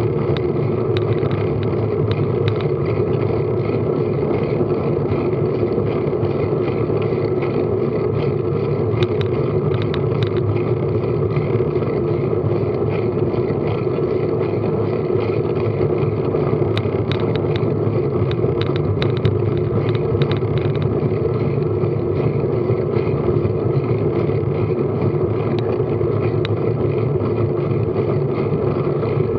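Steady wind and road rumble picked up by a bicycle-mounted action camera on a moving bike, with a few light ticks scattered through the middle.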